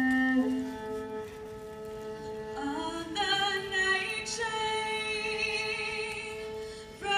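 Violin and viola playing long sustained notes, joined about two and a half seconds in by a female voice singing with vibrato.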